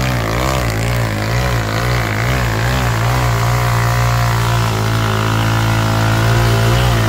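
Off-road go-kart engine running, its pitch wavering up and down about twice a second for the first few seconds, then holding steadier.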